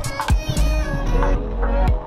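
Background music with a deep bass line and a regular drum beat.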